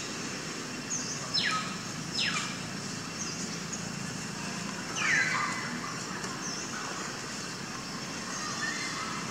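Three high, quickly falling calls from an animal, the third the loudest, with a few faint short chirps. They sit over a steady low outdoor background hum.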